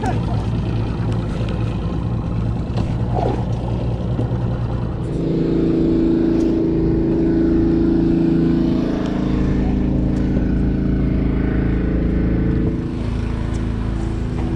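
Boat outboard motor running at idle, a steady low engine hum. About five seconds in, a louder, higher engine note joins and holds.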